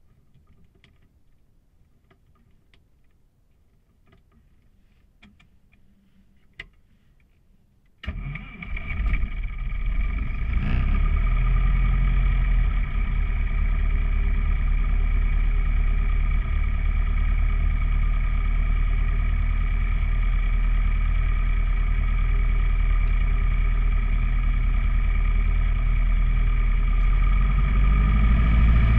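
A few faint clicks, then about eight seconds in a light aircraft's piston engine starts abruptly and settles into a steady idle, heard from inside the cockpit. Near the end the engine speeds up a little.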